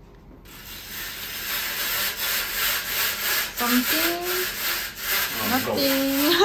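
A fabric window blind being raised on its pull cord: a rasping, rubbing sound of cord drawn through the blind's mechanism in repeated pulls, starting about half a second in.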